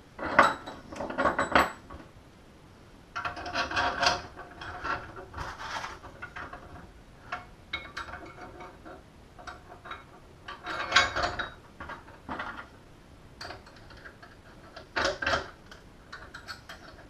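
Metal clinking and rattling from a sector antenna's mounting bracket and its bolts being handled and fitted together, in irregular bursts with short quiet gaps between.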